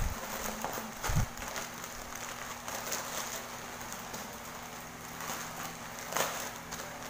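Plastic courier pouch and clear plastic wrapping rustling and crinkling as a parcel is opened by hand, with a short low thump about a second in.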